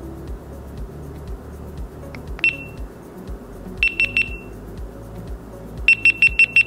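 GoPro Hero 12 Black action camera beeping as it starts up and begins recording: one high beep, then three quick beeps, then a fast run of about seven beeps near the end.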